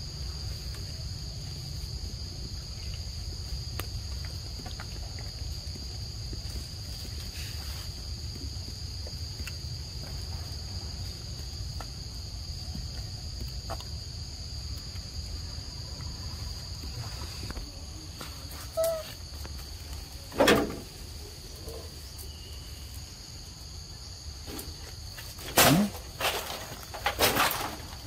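Steady high-pitched drone of insects, which fades out about two-thirds of the way through. Over the last ten seconds come four short, loud sounds.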